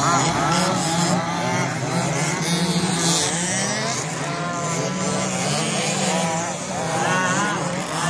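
Several radio-controlled buggies racing on a dirt track, their motors whining and rising and falling in pitch as they accelerate and slow for the corners. A steady low hum runs underneath.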